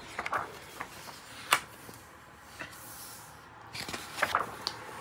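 A hand turning the pages of a large hardcover art book: soft paper rustles and small taps, with one sharp tap about one and a half seconds in and a brief cluster of paper rustling near the end.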